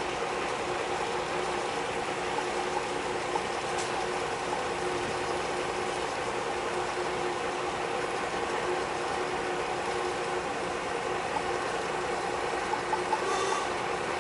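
Engine idling with a steady hum over open-air background noise.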